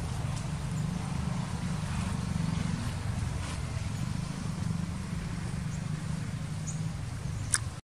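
Steady low outdoor rumble, with a single sharp click near the end before the sound cuts out.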